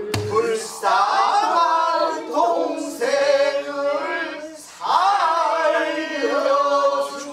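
A group of voices singing a pansori phrase in unison, with long held notes that bend and slide in pitch. There is one low stroke on a buk barrel drum at the start.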